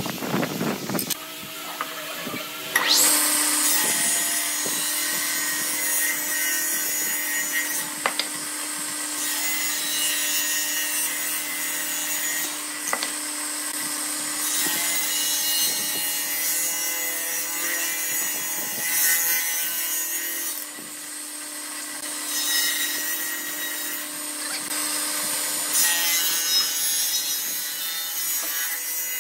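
Table saw starting up about three seconds in, its motor and blade whining up to speed, then running steadily. Several times the blade rips wooden blocks lengthwise, each cut a few seconds of louder sawing over the steady hum.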